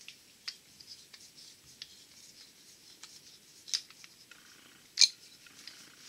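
Light clicks and scrapes of small metal parts: a screwdriver working the retaining screw of a Bendix drive on a Delco-Remy starter shaft. A few sharper clicks stand out, the loudest about five seconds in.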